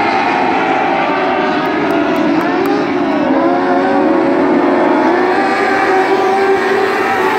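A pack of dwarf race cars with motorcycle engines running hard, a loud continuous drone of several engines at once, with pitches dipping and then rising about halfway through as cars go past.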